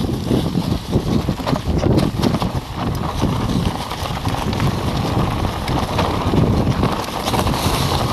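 Mountain bike descending a rough, rocky trail: tyres crunching over stones and dirt and the bike rattling with many small knocks over the bumps, with wind buffeting the handlebar-mounted microphone.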